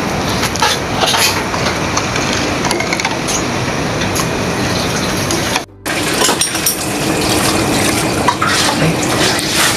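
A metal ladle stirring a liquid marinade in a stainless steel pot: the liquid sloshes and the ladle clicks against the pot, over a steady noise.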